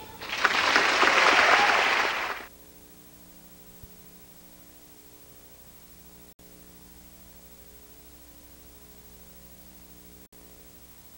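Audience applauding for about two and a half seconds, cut off suddenly. Then only a faint steady hum.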